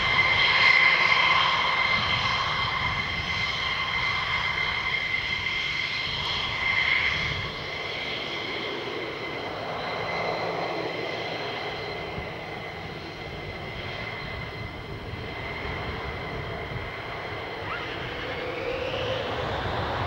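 McDonnell Douglas F-15E Strike Eagle taxiing at idle: a steady jet whine carrying several held high-pitched tones, the whistle of its engine nozzle jacks. It is louder for the first several seconds, and a tone glides upward near the end.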